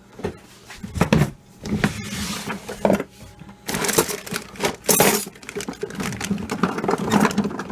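Kitchen utensils and cookware clattering and knocking, a series of sharp clanks about a second apart, as someone rummages for a utensil to use on a non-stick pan.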